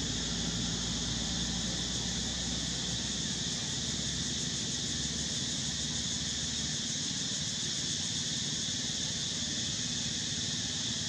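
Steady, unbroken drone of insects, high-pitched, with a faint low hum underneath.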